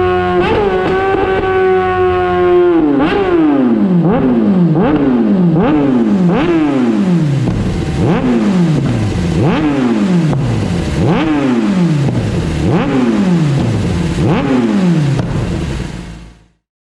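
A 2018 Kawasaki ZX-10R's inline-four, breathing through a de-catted link pipe and a K67 carbon-fibre slip-on exhaust, is held at high revs for about three seconds with its pitch slowly sinking. It then drops and is blipped hard again and again, roughly once a second, each rev falling straight back.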